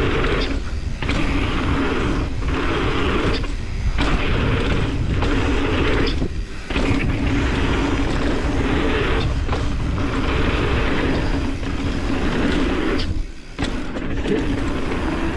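Mountain bike riding fast down a dirt downhill trail: a steady rush of tyre and wind noise with the bike rattling, dropping away briefly several times.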